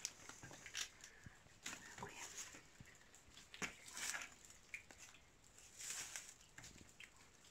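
Faint, intermittent rustling and light crackling of dry onion leaves and a plastic sack as sprouted onion stalks are pulled and handled, with scattered soft clicks.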